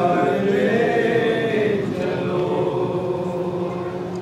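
Voices chanting a devotional chant in long held notes that slide slowly up and down in pitch.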